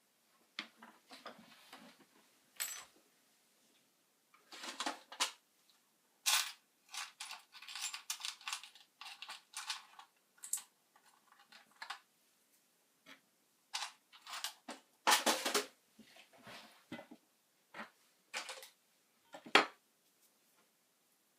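Irregular clicking, clattering and rustling of small hard objects being handled, in scattered bursts with short pauses.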